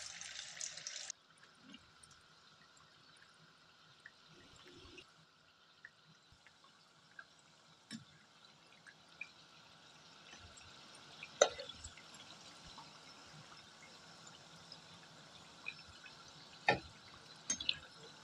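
Rice vadas deep-frying in hot oil, a faint steady sizzle that is louder for about the first second. A few sharp clinks of a steel slotted spoon against the pan are heard, the loudest about halfway through.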